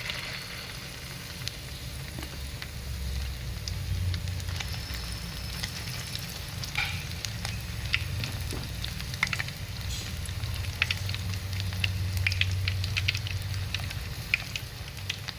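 Egg-and-fish omelette mixture frying in hot oil in a pan: a steady sizzle with scattered crackles and pops.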